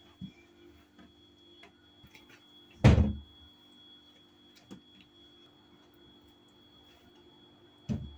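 A loud dull thump about three seconds in and a softer one near the end, with a few faint clicks over a low steady hum.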